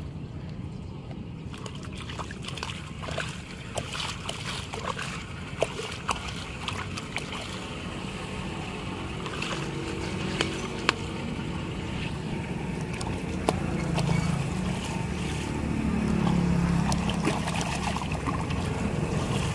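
Water sloshing and splashing as a stick pokes and knocks at debris in a clogged concrete culvert, with many sharp clicks and knocks. From about two-thirds of the way in, the water gets louder with a low rushing as it starts to pour through the cleared culvert opening.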